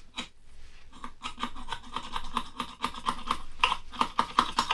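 Quick, rhythmic scrubbing strokes, about five a second, rubbing old adhesive residue off a metal keypad panel with isopropyl alcohol.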